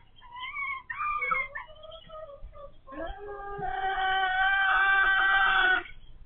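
Laying hen calling loudly: a few short squawks that slide up and down, then one long drawn-out call of nearly three seconds that cuts off abruptly. This is the noisy calling that hens take up once they start laying eggs.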